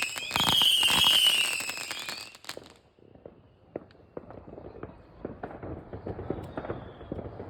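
Fireworks: several whistles falling in pitch over dense crackling and bangs, then the barrage dies away about two seconds in, leaving scattered faint pops.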